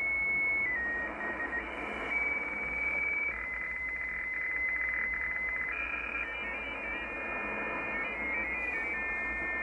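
F07 Russian numbers station digital transmission (16-tone MFSK with BPSK framing) heard through a Yaesu FTdx10 shortwave receiver in USB, over static hiss. At first single tones step from pitch to pitch. About a third of the way in comes a buzzy, rapidly chopped tone. Past the halfway point several tones sound at once, hopping in quick pitch steps.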